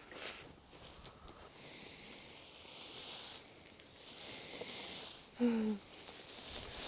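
Loose hay rustling and crackling as cattle pull and push at an unrolled bale, swelling and fading twice. About five and a half seconds in, a short call falls in pitch.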